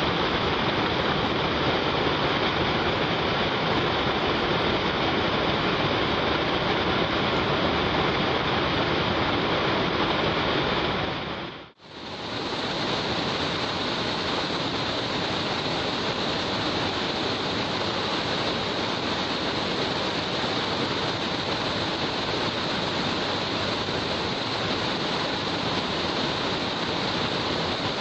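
Sasa-no-taki waterfall rushing steadily. About twelve seconds in the sound fades out and back in, then carries on a little thinner and hissier.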